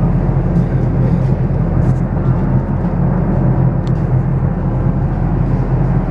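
Small harbour ferry's engine running steadily under way, heard on board as a continuous low rumble.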